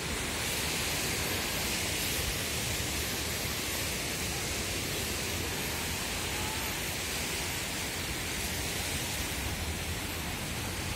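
Steady rushing hiss of beach ambience, even throughout with no distinct events.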